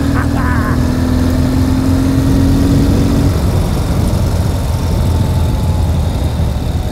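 Ural sidecar motorcycle's flat-twin engine running steadily while riding, a low drone. A steady hum over it stops about three seconds in.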